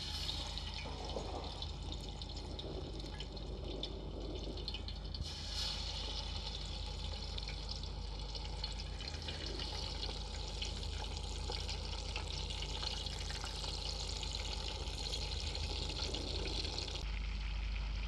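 Marinated quail deep-frying in hot oil, a dense sizzling crackle that flares up as pieces are dropped in at the start and again about five seconds in.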